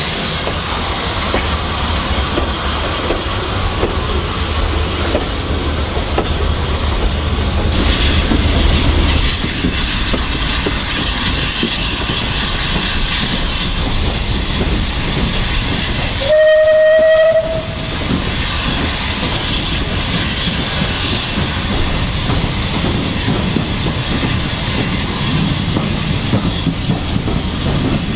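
Steam train running along the line, wheels clicking over the rail joints with a steady hiss of steam. About two-thirds of the way through a steam whistle sounds once, a single loud note held for about a second and rising slightly in pitch.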